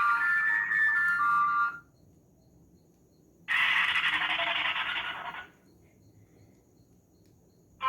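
Sony Ericsson W300i ringtone: a melody of stepped electronic tones stops about two seconds in. After a pause, a steady hiss lasts about two seconds and then cuts off.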